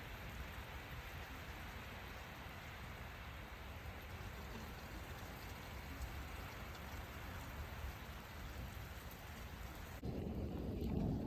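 Steady rain hissing. Near the end the hiss drops away suddenly and a low rumble of thunder comes in.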